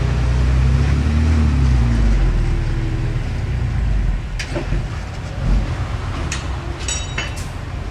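Diesel engine of heavy earthmoving equipment running steadily, louder in the first half, with a few sharp metallic clanks in the second half.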